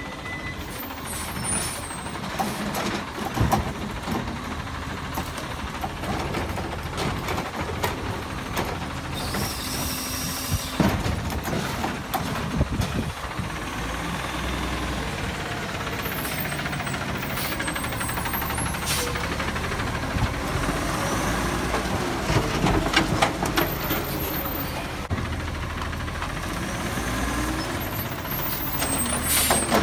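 Natural-gas Autocar ACX rear-loader garbage truck running as it drives slowly past, with a hiss of air from the brakes about ten seconds in and a few clunks from the truck. The engine note rises and falls through the second half as it pulls around the turn.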